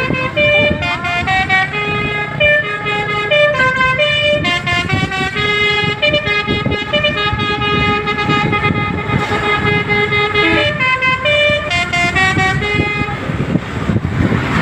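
A bus's telolet horn, a set of musical air horns, plays a tune of quick stepped notes over the bus's running engine. The tune stops about 13 seconds in.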